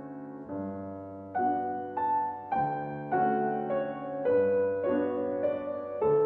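Slow piano music: single notes struck about once or twice a second, each left to ring and fade over held lower notes.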